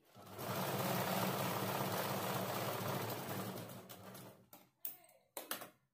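Sewing machine running steadily while stitching a sleeve seam, then slowing to a stop about four seconds in, followed by a few short clicks.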